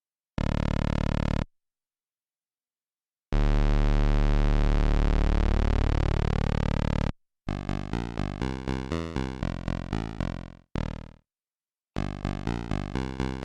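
Synthesizer sound demo. A short held note, then a long low droning note whose upper tones sweep steadily upward, then quick runs of short notes, each part starting and stopping abruptly with dead silence between them.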